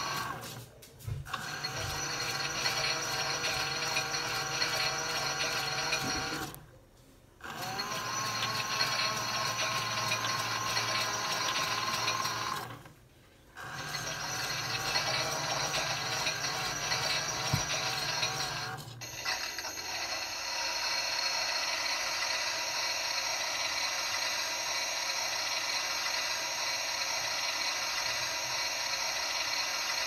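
Miele W1 front-loading washing machine running a wash, its drum motor whining as it turns the drum, with three short pauses. Near the end it settles into a steadier, even running sound.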